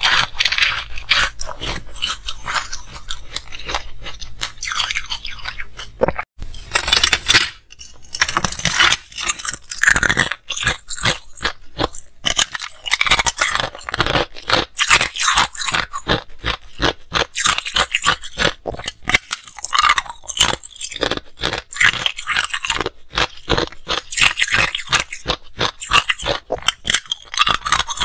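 Hard ice being bitten and crunched between the teeth, close to the microphone, with dense sharp crunches and cracks of breaking ice. There is a short break about six seconds in.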